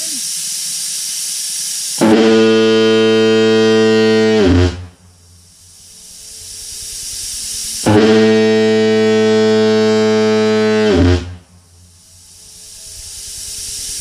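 Type F Diaphone fog horn sounding two deep blasts on compressed air at about 45 PSI, each about three seconds long and ending with a brief drop in pitch. Between the blasts there is a steady hiss of air.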